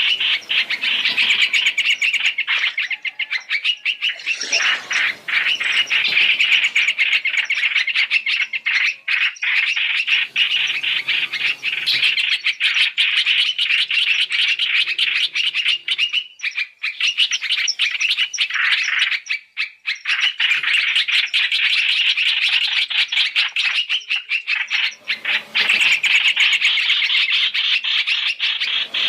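Hoành hoạch (trao trảo) bird calls in a trapping lure recording: a loud, rapid, near-continuous chattering, with a couple of short breaks.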